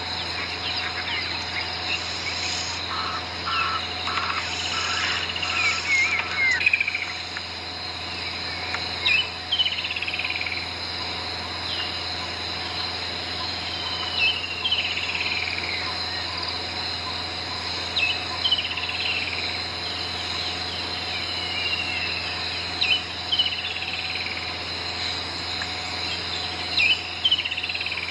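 Bush ambience: a steady insect chorus with birds calling, mostly short falling whistles every few seconds, over a low steady hum.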